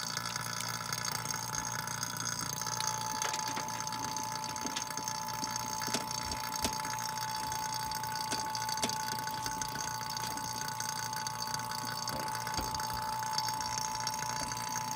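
HVAC vacuum pump running steadily, pulling a vacuum on a mini-split's refrigerant lines through the manifold gauge hoses. A few faint clicks come from the brass hose fittings being handled at the service ports.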